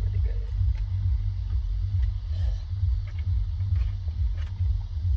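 A steady low rumble, like a vehicle running, with a few faint clicks and taps over it.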